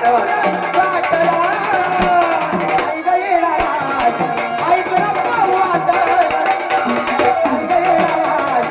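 Gondhal devotional music: sambal drums beating a steady, driving rhythm under a wavering melodic line.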